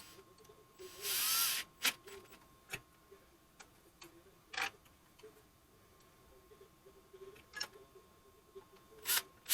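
Hand work on small hardware: scattered sharp clicks and taps of screws, nuts and tools against metal brackets, with one louder burst about half a second long about a second in.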